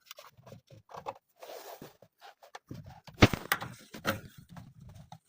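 Scattered clicks, knocks and scrapes of hands handling parts and tools, with one sharp knock about three seconds in and a few smaller ones after it.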